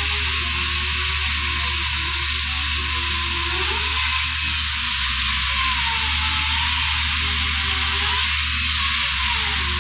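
Pneumatic chainsaw running steadily while cutting into a block: a loud, even hiss with a low hum underneath.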